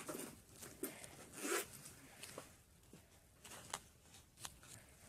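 Makeup items being handled and rummaged through in a bowl: short rustling swishes, the loudest about one and a half seconds in, and a handful of light clicks and taps.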